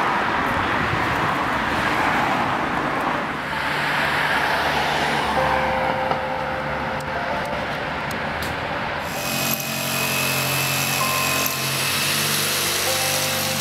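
City street traffic noise, a steady rush with the low hum of passing vehicles. About nine seconds in it cuts off abruptly and is replaced by a steady sound with several held tones.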